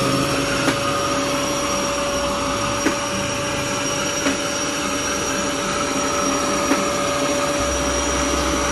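Electrolux Well Q6 cordless stick vacuum running steadily with its brush attachment: a constant whine over the rush of suction, with a few faint clicks.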